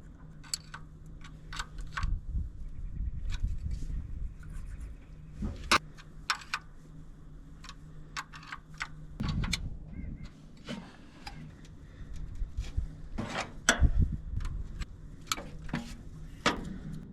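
Irregular metallic clicks and taps of hand tools working the rocker-arm adjusters on an International Harvester Silver Diamond SD220 engine while the valves are being set, with a few dull thuds in between and a faint low hum underneath.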